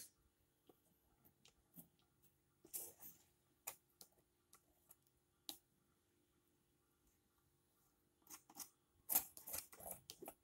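Palette knife scraping and tapping over wet acrylic paint on paper: faint, scattered short scrapes and clicks, one longer scrape about three seconds in, and a quick flurry of strokes near the end.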